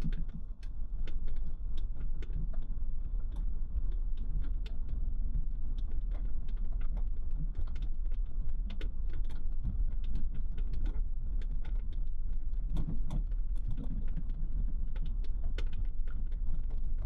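Vehicle tyres rolling over a wooden-planked one-lane bridge deck: a steady low road rumble with loose planks clacking and knocking irregularly, several times a second.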